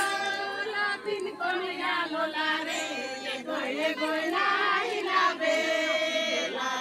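Several women singing a song together, overlapping voices with long held notes.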